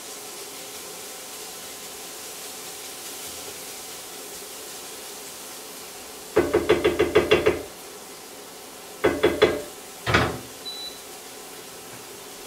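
Wooden spatula knocked against the edge of a de Buyer iron frying pan to shake off clinging diced onion: a quick run of about nine knocks, then four more, then one last knock that rings briefly.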